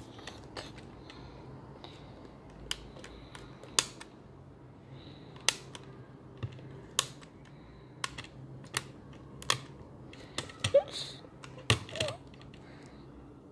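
Sharp plastic clicks at irregular intervals as small buttons on a toy's pink plastic lock are pressed one at a time, entering a code.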